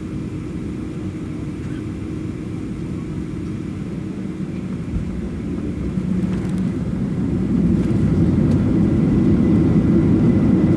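Airliner engine noise heard from inside the cabin: a steady low rumble with a faint hum, growing louder over the second half.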